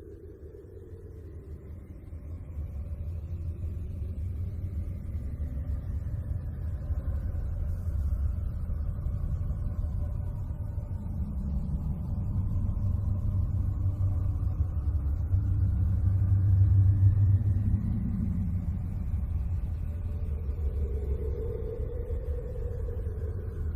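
A 'sound of space' recording: a deep rumbling drone that slowly swells louder and eases again, with faint whistling tones gliding slowly up and down above it.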